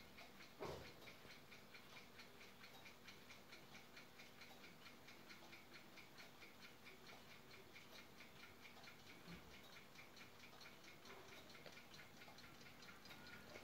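Brass ship's clock by N.V. Observator of Rotterdam ticking faintly, quick and even at several ticks a second. There is one brief knock a little under a second in.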